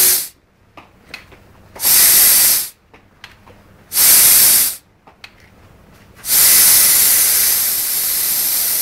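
Compressed air hissing out of a Briggs & Stratton engine converted to run on air, in three short bursts and then a long steady blast, while the engine does not run. The air is escaping through a leak around the cylinder head, which the owner blames for the failed start.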